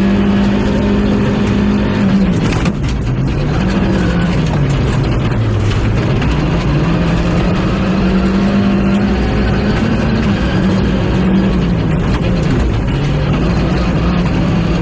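Rally car engine driven hard on a stage. The engine note holds high, drops about two seconds in and again around five to six seconds in, then climbs back each time, with lifts and gear changes. It holds high through the middle and dips briefly near the end.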